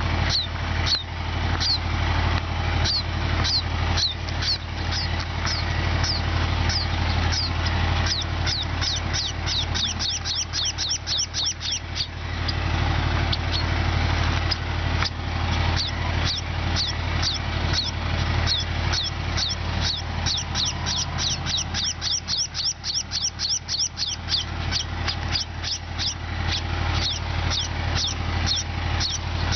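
A flock of sparrows chirping: many short, quick chirps, coming thickest in a couple of busy spells, over a steady low hum.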